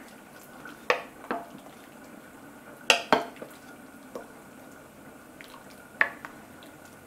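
Wooden spoon stirring chicken pieces and sauce in a ceramic slow-cooker crock, knocking against the crock now and then: about seven irregular knocks, the loudest pair about three seconds in.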